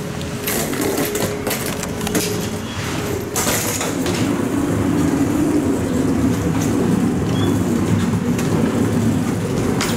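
Wheeled suitcase rolling along a jet bridge floor with a steady rumble and scattered clicks, along with footsteps; the rumble grows louder about three and a half seconds in.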